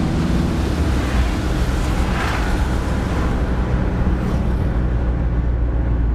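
Mercedes-Benz car driving, heard from inside the cabin: a steady low engine drone with tyre and wind noise over it.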